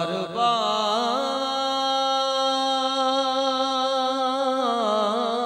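A man singing a naat solo into a microphone, drawing one word out over long held notes that waver and bend in pitch.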